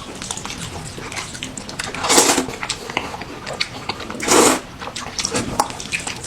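Close-miked mukbang eating sounds, sped up to double speed: a run of wet mouth clicks and smacks while chewing, with two louder, longer rushes of noise about two seconds in and again near four and a half seconds, like big slurps or bites.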